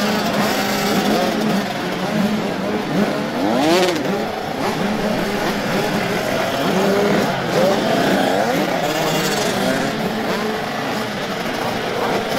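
Several motocross bike engines racing at once, overlapping, each rising and falling in pitch as the throttle is opened and closed, with a short rush of noise about four seconds in.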